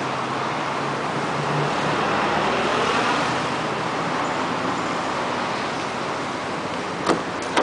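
Road traffic noise: a steady rush that swells and fades about three seconds in, as of a vehicle going past, with a sharp click near the end.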